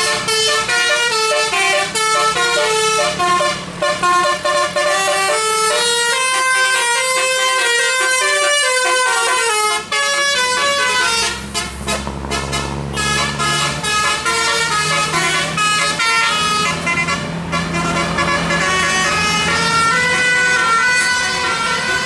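Tour bus's telolet musical air horns playing a rapid tune of many short stepping notes. The bus's diesel engine is heard underneath from about halfway through as the coach drives past.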